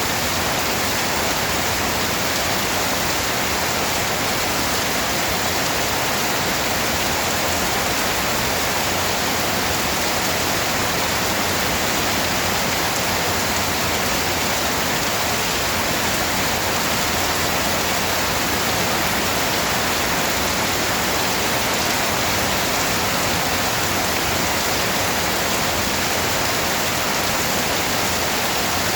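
Steady, even rain, a continuous dense hiss with no distinct individual drops.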